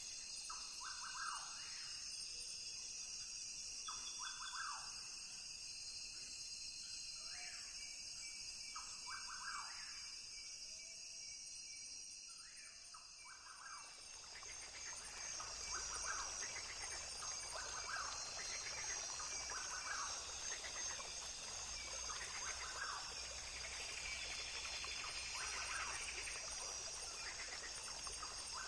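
Rainforest ambience: a steady, high-pitched chorus of insects with short animal calls repeating every two or three seconds. About halfway through, the calls come thicker and the whole sound grows fuller.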